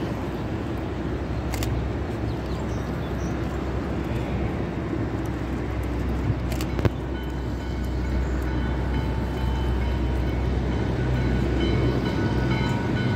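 WMSR 1309, a 2-6-6-2 Mallet steam locomotive, working a train as it approaches: a steady low rumble that grows gradually louder, with faint steady high tones joining about seven seconds in.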